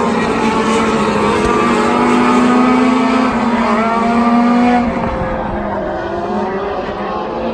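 A pack of IndyCars' twin-turbo V6 engines running past, several engine notes overlapping and shifting in pitch, easing off about five seconds in.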